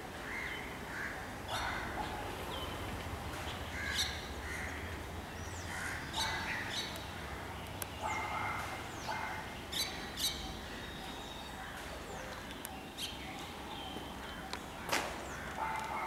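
Several birds calling at once: a steady run of short chirps and squawks, many overlapping, with a few sharp high chirps.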